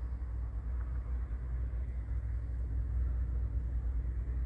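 Heavy truck diesel engine idling: a steady, even low rumble.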